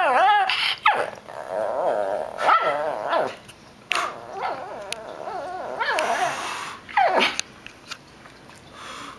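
Shih tzu grumbling in a warbling, sing-song voice instead of barking, in several bouts with short gaps. One bout near the end slides sharply down in pitch.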